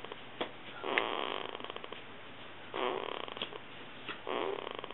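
Two-week-old baby snoring: three noisy, rattly breaths about a second and a half apart.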